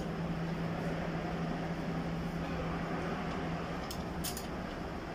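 Steady low hum and air-moving noise from a running machine, with a few light metallic clicks about four seconds in from a socket ratchet being worked on the oil-pan drain plug.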